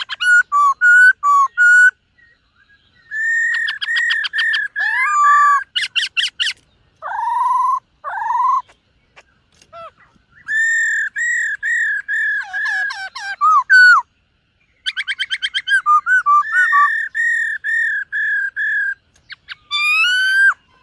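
Black-throated laughingthrush singing in loud whistled phrases. Each phrase is a run of clear, repeated notes, with fast rattling trills and swooping notes between, and short pauses between the phrases.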